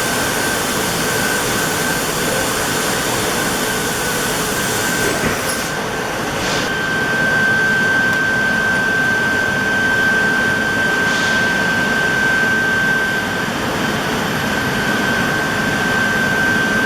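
Trumpf TCL 4050 laser cutting machine running: a steady loud hiss and whir with a constant high whine, and a few brief sharper hisses about five and a half, seven and eleven seconds in.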